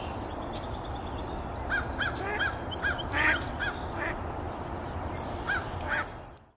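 Mallard hen quacking: a quick run of short quacks in the middle, then two more near the end.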